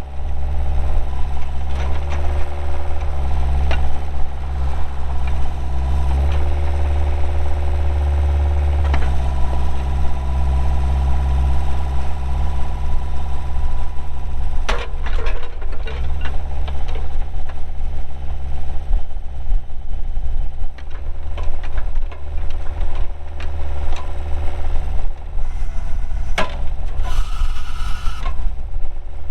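Bobcat 430 mini excavator's pre-emissions 42 HP Kubota diesel engine running under hydraulic work, its pitch shifting in steps several times as the controls are worked. A few sharp knocks from the machine are heard in the second half.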